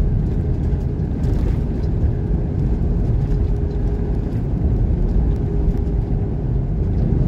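Steady low rumble of a semi-truck's engine and tyre noise heard inside the cab while cruising on the highway, with a faint steady whine underneath.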